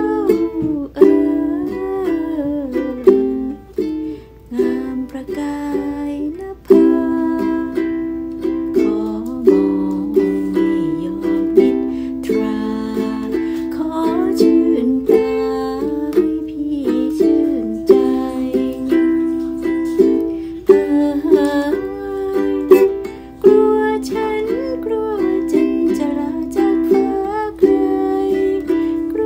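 A woman singing a Thai song while strumming a ukulele, her voice carrying the melody over regular strummed chords. She is a beginner practising her singing.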